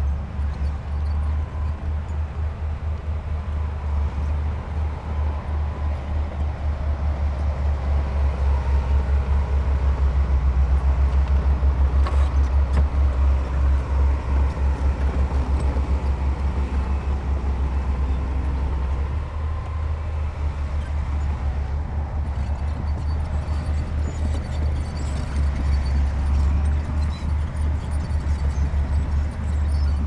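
Heavy construction-machine diesel engine running under load with a deep, fast throb, getting louder for several seconds around the middle.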